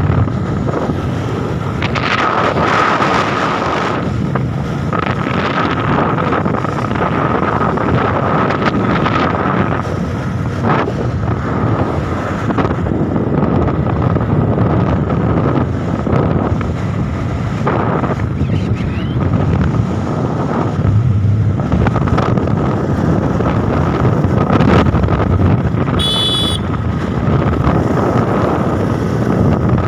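Motorcycle under way on the road, its engine running steadily with heavy wind buffeting the microphone, and a faint steady whine over it. A brief high chirp is heard near the end.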